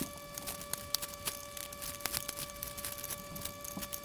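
A wrench turning the threaded centre nut on a touch lamp's metal base, with scattered small clicks and metallic ticks as the tool and base are handled. A faint steady tone runs underneath.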